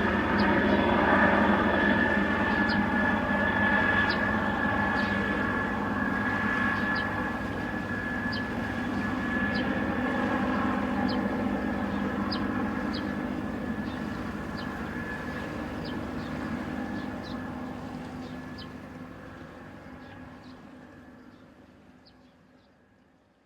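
Helicopter rotor blades and engine running with a steady high whine over a low drone, fading away into the distance over the last several seconds as it flies off.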